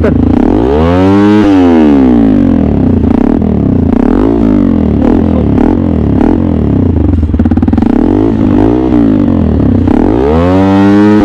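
Motorstar Z200X motorcycle engine running loud through an open Villain R11 exhaust, revving up and back down several times.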